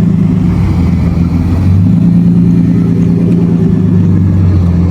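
Car engine running with a low, steady drone, its pitch stepping slightly about a third of the way in and again near the end.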